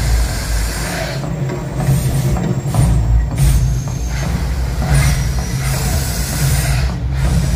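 Mirage volcano show's gas flame jets firing: several bursts of rushing fire noise over a continuous deep rumble.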